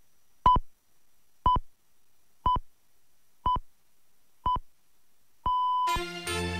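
Radio time signal marking the top of the hour: six pips of one steady tone, one a second, five short and the sixth held longer. Music from the news jingle comes in just after the last pip.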